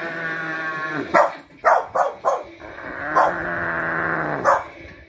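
Small dog barking sharply five times: four quick barks about a second in and one more near the end. Long, drawn-out wailing sounds come before and between the barks.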